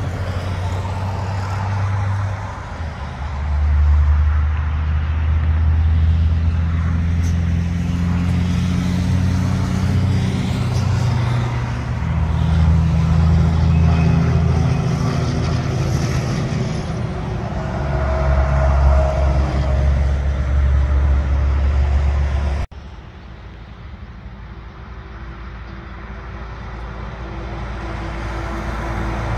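Highway traffic passing close by: heavy trucks' diesel engines and tyre noise swell and fade as each vehicle goes past. After a sudden cut about two-thirds of the way through, a truck is heard approaching, growing steadily louder.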